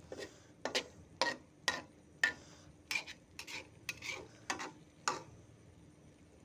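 A cooking utensil knocking and scraping against a cooking pot while the food is stirred: about a dozen sharp clinks, roughly two a second, stopping shortly before the end.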